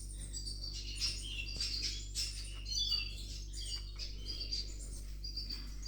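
Canaries chirping and twittering in short, high calls over a steady low hum.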